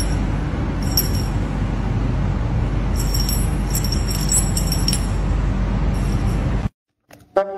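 A small bell jingling in short bursts, about a second in and again for a couple of seconds in the middle, over a steady low rumble. The sound cuts off near the end, and a brass tune starts.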